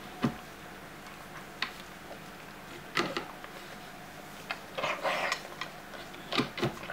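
Scattered soft clicks and short rustles of gloved hands handling small scissors and a newborn puppy during whelping, likely around cutting the umbilical cord. The loudest is a sharp click about a quarter second in, with a longer rustle about five seconds in.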